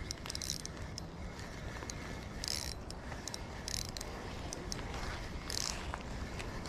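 A spinning reel is being cranked to bring in a hooked fish, its gears making a steady mechanical whirring and clicking. Several short, higher-pitched bursts of ticking come through at irregular intervals.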